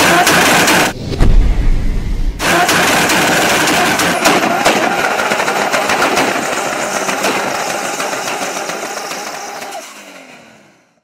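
Car engine and exhaust sound effect: two short, loud engine blasts, then a long run of rapid exhaust crackling and popping that fades away near the end.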